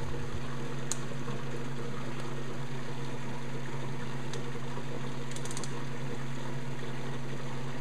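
Home-built HHO generator running: a steady electric hum from its pump and power-supply fan, with a few faint clicks.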